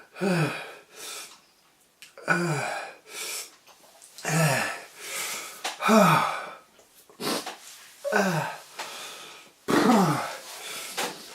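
A man's pained moans and breathy exhalations: about seven short "oh"-like cries, each falling in pitch, a second or two apart, from the burning of a freshly eaten ghost pepper.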